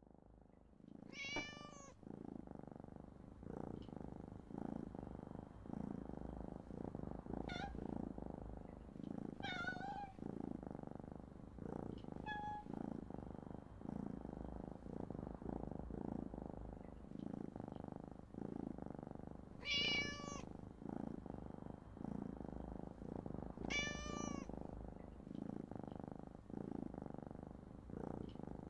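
Kittens meowing: about six short, high-pitched meows spread out, the loudest about 20 seconds in, over a steady low background noise.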